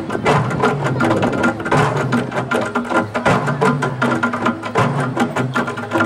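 Percussion ensemble of tall standing drums and wooden log percussion (kakeng) playing together, many quick strikes in a steady driving rhythm.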